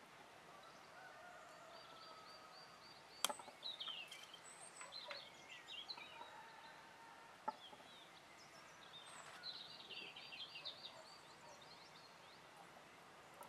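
Small birds chirping in two short spells, with two sharp snips from bonsai pruning shears about four seconds apart.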